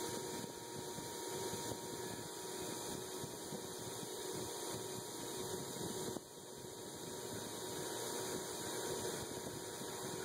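KMG-style belt grinder running steadily, its abrasive belt hissing against a CPM 3V steel cleaver blade held on the platen. The sound drops briefly about six seconds in and builds back up.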